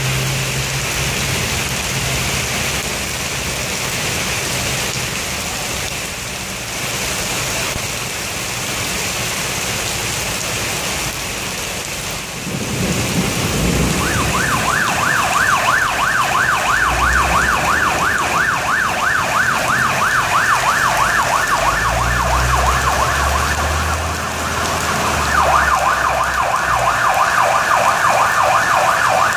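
Heavy rain pouring steadily. About 14 seconds in, a fire engine's siren starts, sweeping rapidly up and down over a low engine rumble as the appliance turns out, and near the end the siren pattern changes as a second tone joins.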